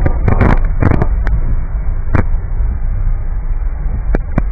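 Car driving through a heavy rainstorm, heard from inside the cabin: a steady low rumble with irregular sharp knocks, bunched in the first second and a half and twice more near the end.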